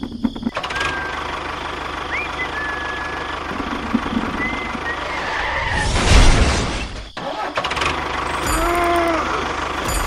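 Tractor engine running steadily with a low pulsing beat, swelling loudest about six seconds in. A few short high chirps sound in the first half, and a short rising-and-falling call comes near the end.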